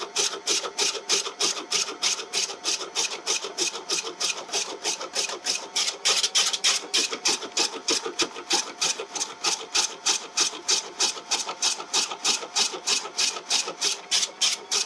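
Homemade vegetable chopper's spinning blade disc slicing leafy greens as they are pushed in, a steady rhythmic rasping at about four strokes a second.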